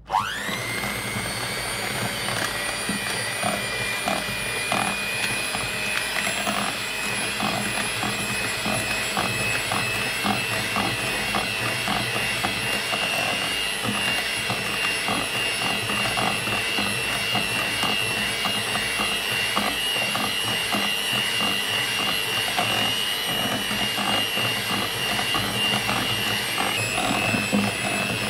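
Electric hand mixer switched on and running steadily, its wire beaters churning through a thick creamy mixture in a bowl. The motor's whine climbs slowly in pitch as it runs and drops a little near the end.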